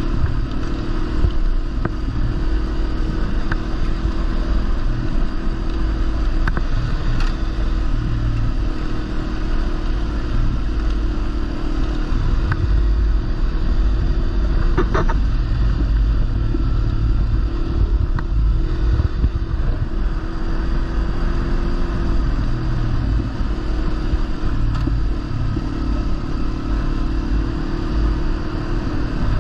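Kawasaki Versys-X 300's small parallel-twin engine running at a steady cruise on a gravel road, under a heavy rumble of wind and tyre noise. A short sharp clatter about halfway through.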